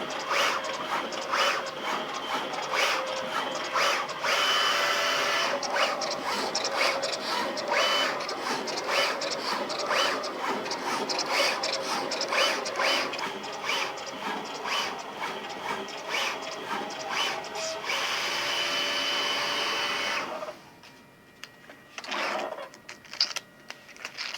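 Zünd G3 flatbed CNC cutter running a sticker-cutting job: a busy machine noise with frequent sharp clicks and, twice, a high steady whine. It goes much quieter about twenty seconds in, leaving a few scattered clicks.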